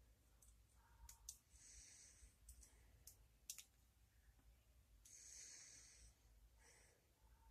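Faint, sharp clicks of lock picks working the pins inside a stiff brass padlock, a scattered handful of ticks, with soft breaths in between.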